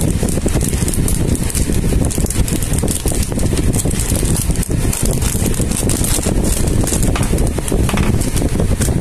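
Steady low rumbling wind noise on the microphone, with short crinkles of a plastic packaging bag being handled and opened.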